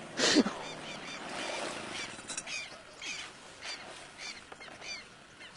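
Birds calling: a louder call just at the start, then short repeated chirps about every half second, over a faint outdoor hiss.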